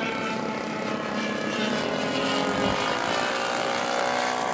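Radio-controlled model seaplane's engine and propeller buzzing at high revs, its pitch climbing in the second half as the throttle opens.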